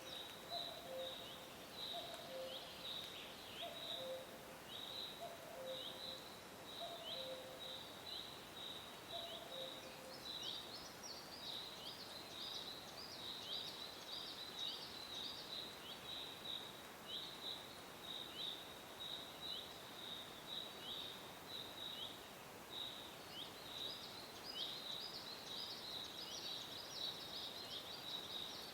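Forest birds singing: a steady run of short, high, downward chirps, several a second, with a lower two-note call repeating through the first third and then stopping. A soft even hiss of breeze runs beneath.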